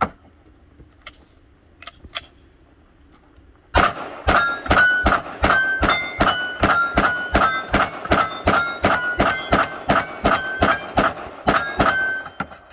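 Rapid pistol fire at steel plate targets, starting about four seconds in: about three to four shots a second for some eight seconds, with the steel plates ringing as they are hit.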